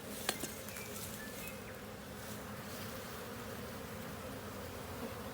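Honeybees buzzing steadily around an open hive, with a sharp click about a third of a second in.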